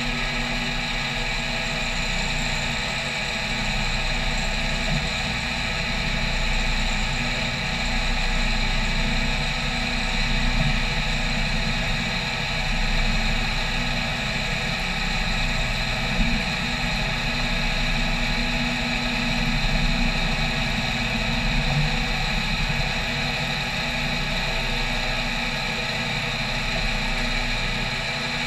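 CNC milling machine running an adaptive clearing toolpath, its end mill cutting aluminium plate: a steady spindle and cutting whine of several held tones over a low rumble, swelling and easing gently every few seconds as the cutter moves through the material.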